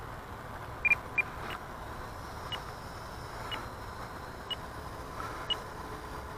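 Short high-pitched electronic beeps from the radio transmitter's flight timer: two loud ones close together about a second in, then one about every second, over a steady background hiss.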